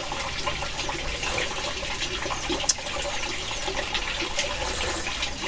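A steady rush of heavy rain and wind on a forest shelter, with a few faint scattered ticks and taps.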